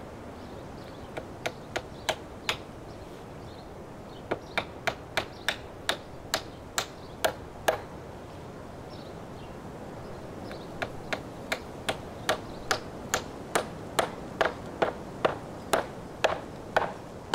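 Hammer driving a nail into a wooden fence rail: three runs of evenly spaced blows, about two to three a second, each a sharp tap with a short metallic ring. The first run is short, the later ones longer and louder.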